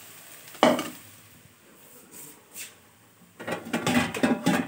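Kitchen cookware and dishes being handled: a sharp knock about half a second in, as of a pan set down, then a few light taps and a busier clatter of dishes near the end.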